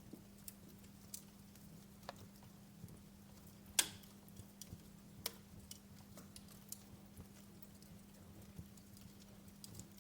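Fireplace fire crackling: scattered, irregular sharp pops and snaps, one louder pop about four seconds in, over a faint steady low hum.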